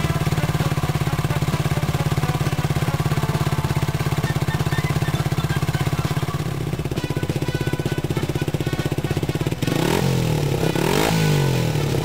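KYMCO KCR125's single-cylinder four-stroke engine idling through a one-off custom muffler, with a rapid, even exhaust pulse. About nine and a half seconds in, the throttle is blipped twice, the pitch rising and falling each time.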